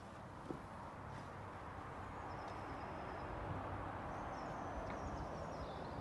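Outdoor garden ambience: a steady rushing background, with faint high bird chirps twice, about two seconds in and again from about four seconds. A light knock comes about half a second in.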